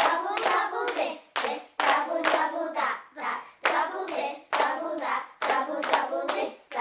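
Hand claps in a steady rhythm, about two a second, with children singing along to the beat.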